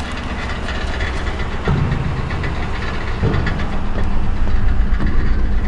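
2006 Ford Crown Victoria Police Interceptor's 4.6-litre V8 idling roughly, growing slightly louder, with a noise the owner places down around the catalytic converters.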